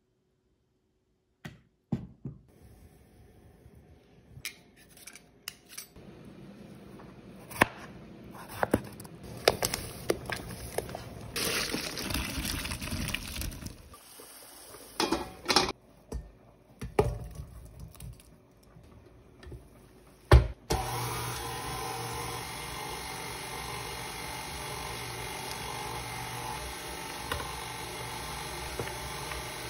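Kitchen handling sounds: scattered clinks and knocks of pots, a colander and utensils, with a few seconds of steady rushing noise a little before the middle. About two-thirds of the way in, a KitchenAid Ultra Power Plus stand mixer switches on and runs steadily, mashing boiled Yukon potatoes.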